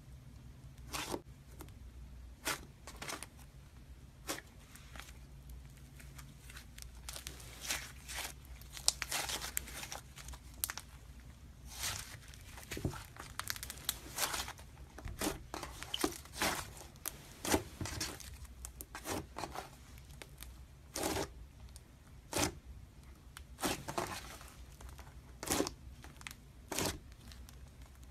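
Slime being squeezed, kneaded and pressed by hand. Silver glitter slime is worked into pink slime, giving irregular sticky crackles and small pops, a few a second, as the fingers squash it and pull away.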